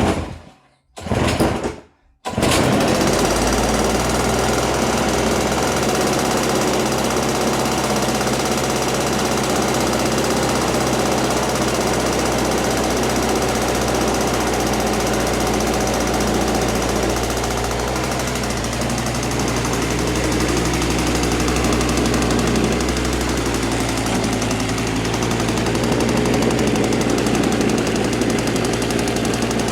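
Toro Snowmaster 20 snow thrower's two-stroke engine starting cold with the choke on. It catches about two seconds in and then runs steadily with a rattly tone, which changes slightly about 23 seconds in.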